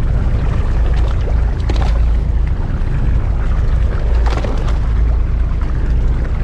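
Steady low wind rumble buffeting the microphone on a small fishing boat at sea, with a few brief splashes of water slapping against the hull.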